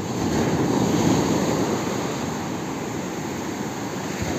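Sea surf washing in over the shallows at the water's edge, a wave surging up about a second in and then drawing back.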